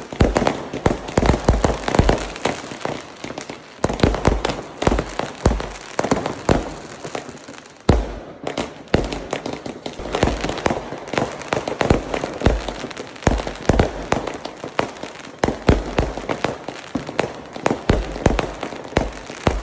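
Fireworks going off in rapid succession, a dense run of bangs and crackles with a short lull about eight seconds in.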